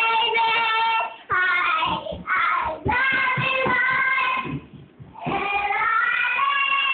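A young child singing loudly in long held notes, breaking off briefly about a second in and again for about half a second a little before five seconds in.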